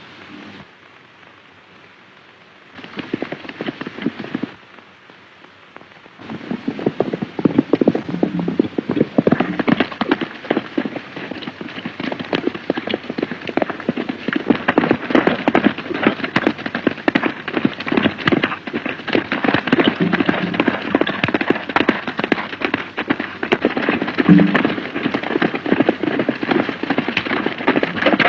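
Hooves of several horses galloping, a dense clatter that starts about six seconds in after a short burst near three seconds.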